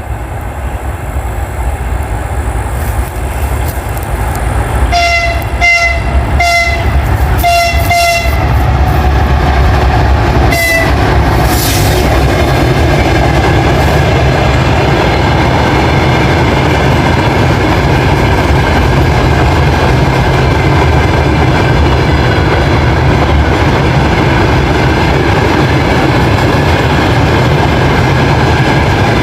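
Diesel locomotive horn, on a TE33AC, sounding a quick string of about five short toots, then one more short toot a couple of seconds later: a friendly greeting from the driver. The train then passes close by with a loud, steady rumble of engine and wheels clacking over the rail joints.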